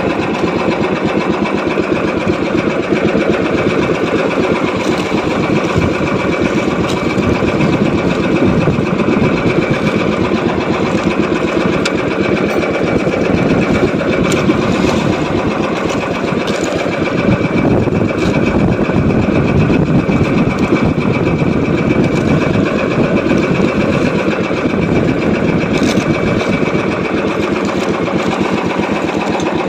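Small boat engine running steadily at an even speed, a fast, continuous rhythmic chugging.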